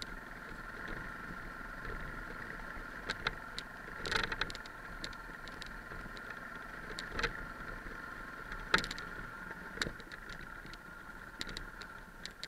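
Yamaha 660 single-cylinder dual-sport motorcycle riding over a rocky dirt track: a steady engine drone with frequent sharp knocks and rattles from stones and bumps, the loudest about four and nine seconds in.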